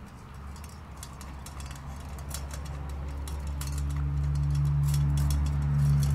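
A Doberman puppy chewing raw meat from a stainless steel bowl, with sharp clicks and metallic clinks of teeth and meat against the bowl. A low steady hum grows louder from about a second in and is the loudest sound near the end.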